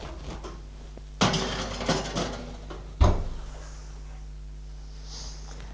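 A metal cake tin rattling against an oven rack, then a single heavy thud about three seconds in as the oven door is shut.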